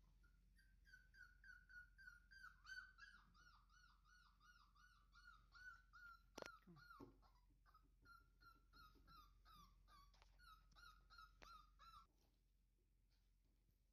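Miniature dachshund puppy whimpering: a long, fast string of short high-pitched squeaks, about four a second, that stops suddenly near the end. Two sharp knocks come partway through.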